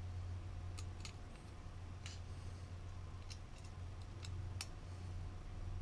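Irregular small clicks and taps of a small screwdriver and parts against a carbon-fibre drone frame part being handled, about seven in all, the loudest a little past the middle, over a steady low hum.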